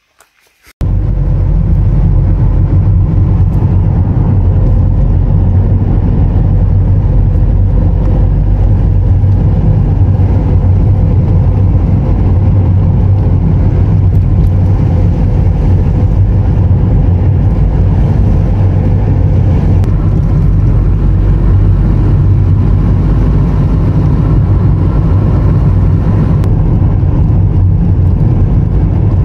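Steady low rumble of engine and road noise heard from inside a moving vehicle's cabin, starting suddenly about a second in.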